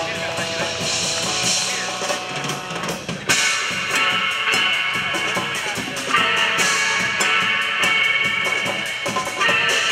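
Live band music with drum kit and guitar playing a steady beat; the music gets louder and brighter about three seconds in.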